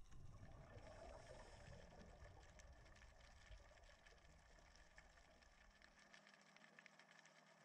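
Near silence: faint underwater ambience, a soft hiss with scattered faint clicks and a low rumble that drops away about six seconds in.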